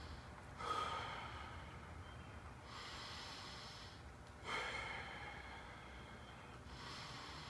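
A man taking slow, deep breaths: two full breath cycles, with a louder breath starting suddenly about a second in and again about halfway through.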